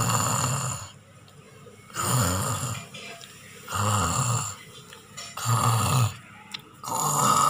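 A person snoring loudly in a steady rhythm: five long snores, each under a second, about one every second and a half to two seconds.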